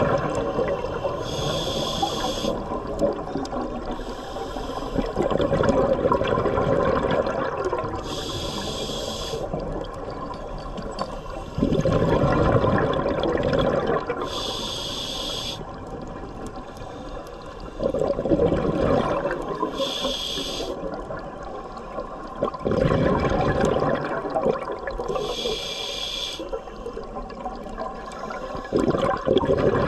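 Scuba diver breathing through a regulator underwater: a short hissing inhale about every six seconds alternating with a rumbling gush of exhaled bubbles, about five breaths in all.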